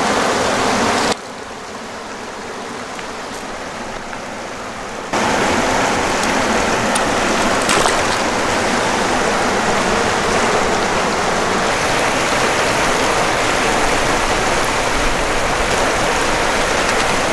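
Steady rush of running water, like a stream flowing over rocks, softer for about four seconds near the start.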